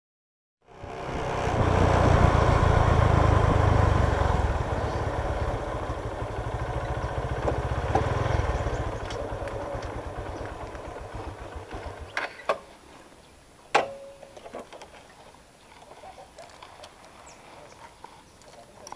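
Motorcycle running as it is ridden along a dirt path, a steady low rumble that dies away after about nine seconds. Two sharp knocks follow, over quiet background.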